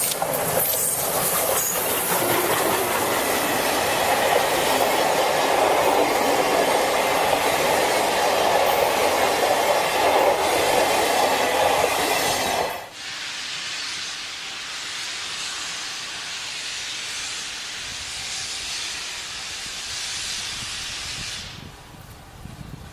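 Steam locomotive C61 20 passing at close range with its train of old passenger coaches: a loud rush of steam hiss and running gear, with wheels clattering on the rail joints. About thirteen seconds in the sound cuts off abruptly to a much quieter steady hiss.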